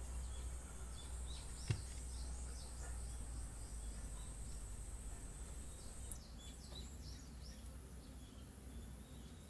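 Background ambience of small birds chirping in short falling calls over a steady high insect drone and a low rumble, with a single sharp click a little under two seconds in.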